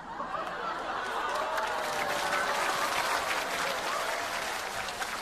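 Studio audience applauding, with some laughter mixed in, swelling in over the first half-second and then holding steady.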